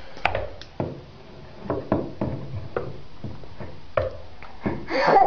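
Irregular plastic knocks and clicks, about ten in five seconds, from a green plastic container and its lid being banged and handled. A voice starts up just before the end.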